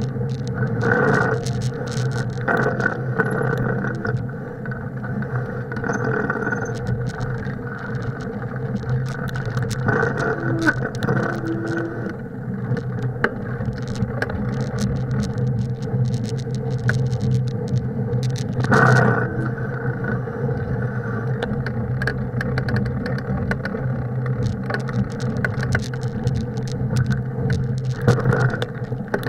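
Bicycle ridden along a packed-snow trail: tyres rolling over snow make a steady low drone, with constant rattling and clicking from the bike, heard close up from a camera riding along with it.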